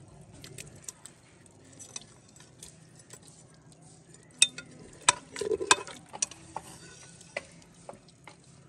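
Metal slotted spoon stirring through boiled beef and potatoes in broth, clinking and scraping against the metal pot, with a cluster of sharp clinks about four and a half to six seconds in.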